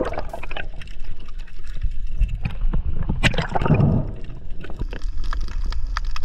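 Water sloshing and splashing close to the microphone, with scattered clicks and a louder splash about three seconds in.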